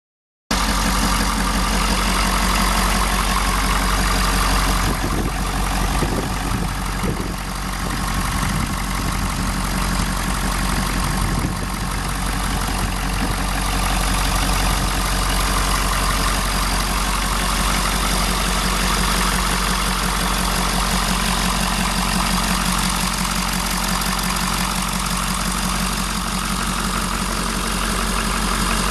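A 2011 Ford F350 Super Duty's 6.7-litre V8 diesel engine idling steadily, starting about half a second in.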